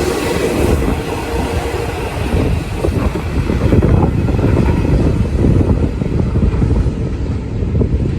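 Kintetsu Moto 94 electric freight train running on the rails, a steady low rumble of wheels on track with some clatter; the higher hiss fades about halfway through while the rumble goes on.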